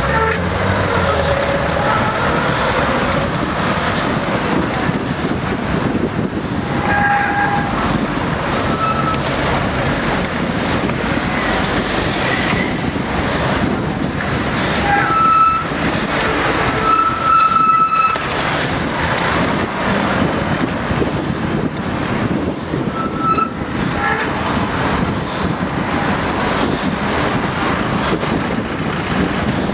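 City street traffic heard from a moving bicycle: a steady rushing din of cars and vans, with a few short high-pitched tones cutting through it, the longest lasting about a second near the middle.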